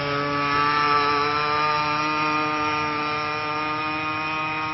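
Wild Thing RC boat's 26cc two-stroke petrol engine running flat out at a steady high pitch, slowly fading as the boat speeds away across the water.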